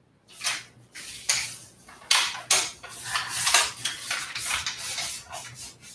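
Crinkly material rustling and crackling as it is handled, in quick irregular bursts that start suddenly about a third of a second in.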